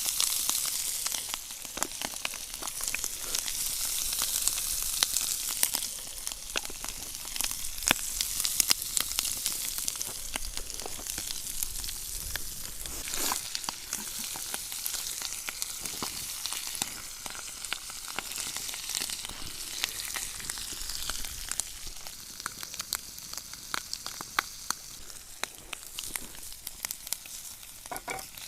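Food frying in a pan: a dense, steady sizzle with many small pops and crackles, easing slightly toward the end.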